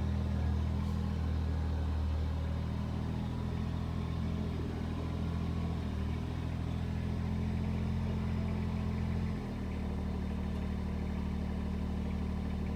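Kubota BX2380 subcompact tractor's three-cylinder diesel engine running steadily; its note drops a little about nine and a half seconds in and holds there.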